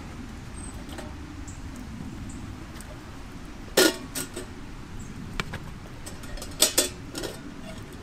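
A few sharp metal clinks from a camp cooking pot and its lid being handled over a low, steady background. The loudest clink comes about halfway through, and two more come close together near the end.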